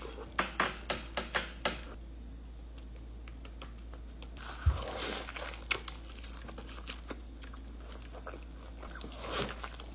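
A person chewing a mouthful of bacon cheeseburger close to the microphone, with a quick run of sharp clicks from the mouth in the first couple of seconds. About halfway through there is a single dull thump with a brief rustle.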